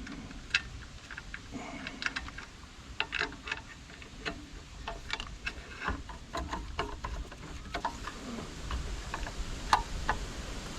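Irregular light clicks and taps of hand tools and metal fasteners being handled while working on a garden mulcher's bolts.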